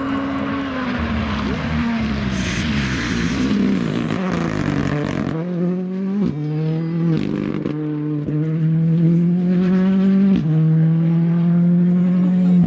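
Ford Fiesta rally car braking into a corner, its engine note falling for the first few seconds, with a hiss as it slides through on the gritty, dusty surface. Then it accelerates hard away through the gears: the revs climb and drop at each of four quick upshifts, and it holds a high, steady note near the end.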